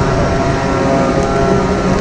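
Heavy farm machinery running steadily during soybean harvest: a constant engine and drive hum with several steady tones over a low rumble.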